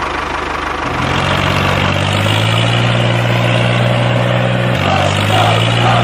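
Tractor engine running steadily with a low drone that steps up about a second in and shifts again near the end.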